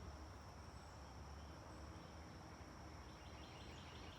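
Near silence: quiet room tone with a faint, steady high-pitched tone and a low hum.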